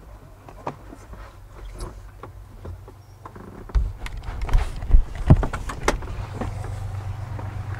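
A camera being grabbed and handled inside a parked car: scattered clicks and knocks, with heavier bumps and thumps against the microphone in the second half. A low steady hum comes in near the end.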